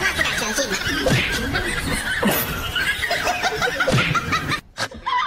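People laughing hard, in rapid repeated bursts, cut off suddenly near the end.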